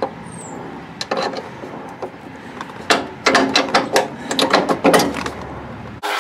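Metal clicks and clanks of a Huskee LT4200 lawn tractor's mower-deck hardware being worked loose by hand, with a few knocks about a second in and a quick run of clanks from about three to five seconds in.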